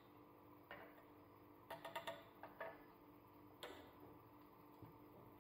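Faint light clinks of a metal teaspoon against a small steel cup of melting ghee. There are a few scattered single ticks and a quick run of four about two seconds in.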